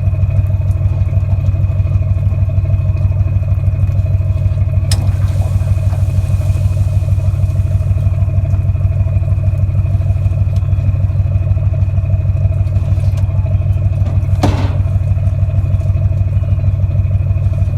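A steady, loud, low mechanical drone with a fast even pulse, like an engine running at constant speed, with two brief swishing sounds about five seconds in and near the end.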